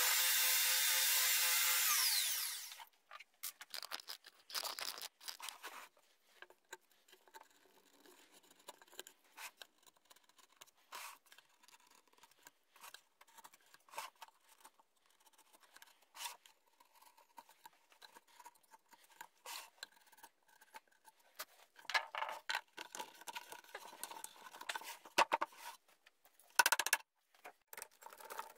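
A loud burst with a rising whine for the first three seconds, then the scattered scraping and clicking of a chisel paring plywood, busier near the end.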